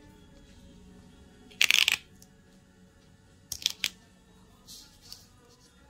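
Heat transfer vinyl being weeded with a pointed hook: a brief rustling peel of waste vinyl about one and a half seconds in, then a few light ticks of the tool on the vinyl and table near the middle, and a faint rustle near the end.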